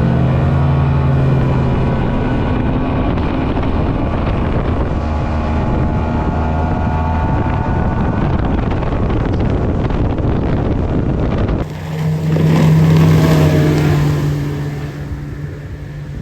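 Speedboat's outboard engine running at speed, with wind noise on the microphone. About two-thirds of the way through the sound changes abruptly to a steady engine tone that swells and then fades away.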